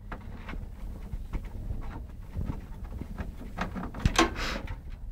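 Screwdriver working a motherboard screw out of a PC case: small irregular clicks and scrapes of metal, with a louder brief rustle about four seconds in.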